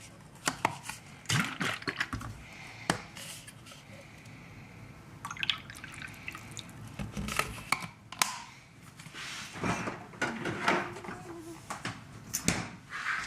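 Irregular clicks, taps and knocks of kitchen utensils and dishes during breakfast preparation, with a faint steady hiss a couple of seconds in.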